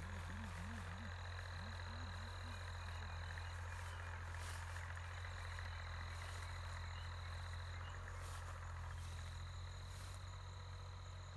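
Open-field ambience: a steady low hum under a high, even trill that sounds in three bouts of two to three seconds each, from calling frogs or insects. There are a few faint clicks.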